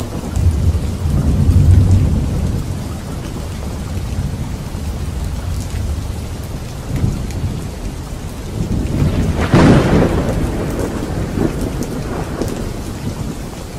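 Thunderstorm: steady rain falling, with a deep rolling rumble of thunder in the first few seconds and a sharper, closer thunderclap about nine and a half seconds in that rumbles away.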